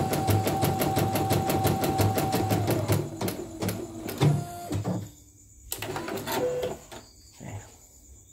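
CNY portable embroidery machine stitching a test design, running fast and even with a steady motor whine, about eight stitches a second. It stops a little under three seconds in, followed by a few clicks and two short beeps.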